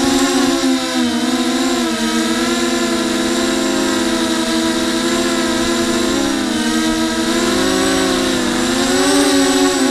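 FPV quadcopter's electric motors and propellers buzzing loudly, heard from the onboard camera, as it flies. Several close tones beat against each other and waver with the throttle, dipping about two-thirds through and rising again near the end.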